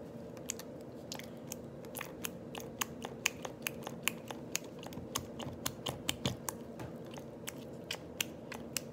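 Plastic hand-soap bottle squeezed and tipped while thick liquid soap pours into a plastic bowl: irregular small clicks and crackles, several a second, over a steady low hum.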